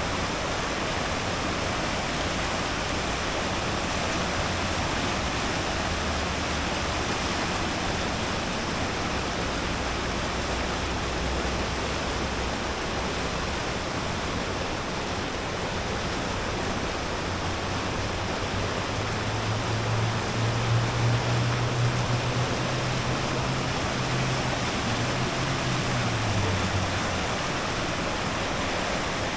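Steady rushing noise of a passenger train car in motion. A low drone, likely from the diesel locomotive, swells in the second half and fades near the end.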